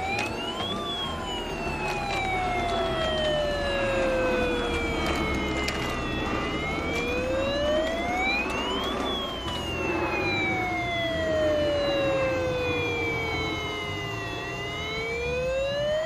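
Battery toy fire engine's electronic siren: a slow wail that rises quickly, then falls over several seconds, repeating about every eight seconds.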